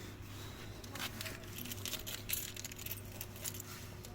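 Scattered light clicks and small metallic rattles from handling the portable air compressor's hose chuck at a bicycle tyre valve, over a faint steady hum.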